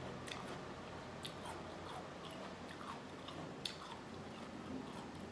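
Close-miked chewing of a mouthful of nachos, with a few short, sharp crunchy clicks scattered through it.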